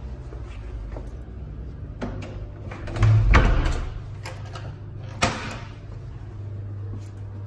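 A wooden toilet-cubicle door being handled: a loud knock-and-swing about three seconds in, then a sharp click a couple of seconds later. A steady low hum lies underneath.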